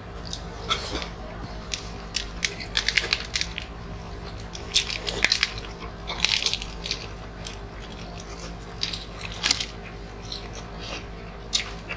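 Close-up eating sounds of several people chewing grilled chicken, rice and crisp lettuce leaves: irregular wet smacks, crunches and clicks, thickest about three and six seconds in, over a faint steady hum.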